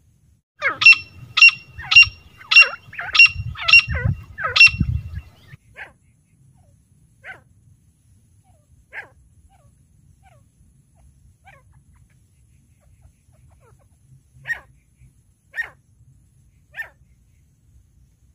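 Female grey francolin calling: a fast run of about seven loud, sharp, high-pitched notes, roughly two a second, then a few fainter single notes at uneven gaps.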